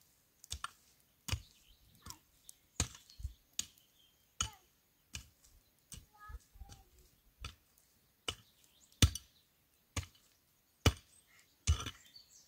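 Repeated sharp blows of a hand tool, about fifteen strikes coming unevenly, roughly one a second.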